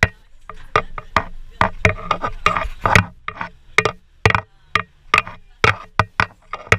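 A rapid, irregular series of sharp knocks and clicks, about three or four a second.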